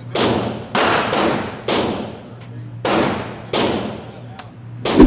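Gunshots from other lanes of an indoor shooting range, five in about four seconds at uneven spacing, each with a long echoing tail.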